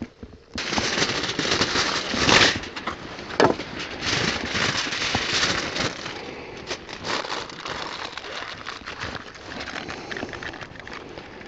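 Aluminium foil crinkling and rustling as a sheet is handled, loudest in the first half, then quieter crinkling as the foil is folded over an opened can.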